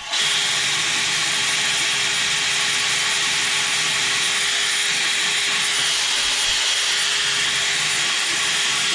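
Power drill spinning a scrub brush against a plastic PC case panel to scrub out stains. It is a loud, steady whir that starts abruptly and runs without change.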